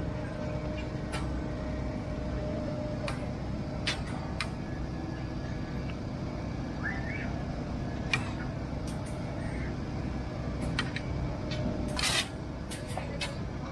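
Steady low engine drone with scattered sharp clicks and clatter, a brief rising chirp about seven seconds in, and a louder clatter near the end.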